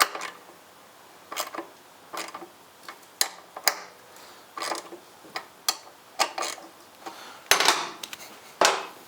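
Irregular clicks and light taps of hand tools and small metal hardware being handled, with a couple of short scrapes near the end.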